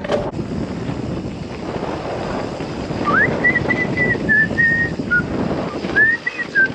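Wind rushing over the camera microphone and mountain bike tyres rumbling over a dirt trail at speed. A thin high whistle-like tone rises about halfway through, wavers for a couple of seconds, and returns briefly near the end.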